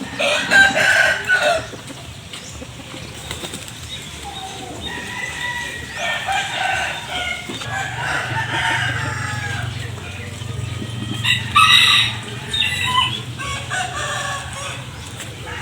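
A flock of chickens calling and clucking, with wings flapping, and loud squawking bursts near the start and again about eleven seconds in.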